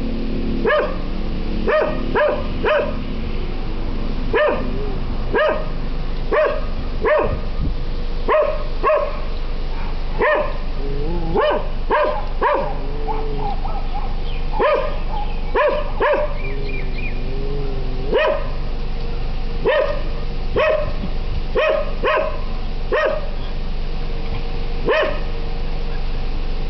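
A dog barking over and over, single barks and quick runs of two or three about a second apart, stopping shortly before the end.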